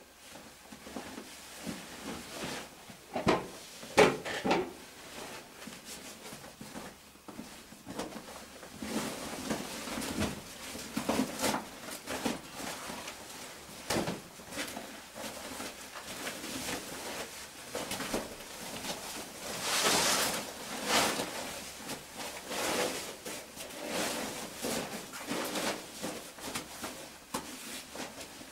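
Caving gear being handled and unpacked: irregular rustling and crinkling of plastic sheeting and cloth, with scattered knocks. The sharpest knocks come about three to four seconds in, and a longer burst of rustling comes about twenty seconds in.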